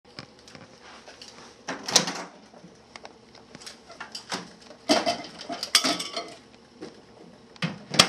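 Microwave door being opened and shut with an object being handled: a string of knocks and clatters, the loudest about two seconds in, more around five and six seconds, and a last one near the end.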